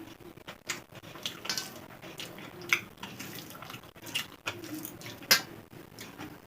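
Close-up eating sounds of a person eating rice by hand: chewing, wet mouth smacks and small clicks, with two much louder sharp clicks a little under three seconds apart.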